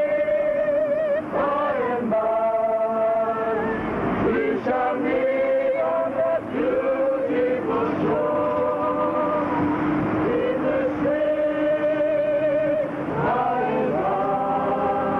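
A group of mourners singing a hymn together, with long held notes that waver slightly.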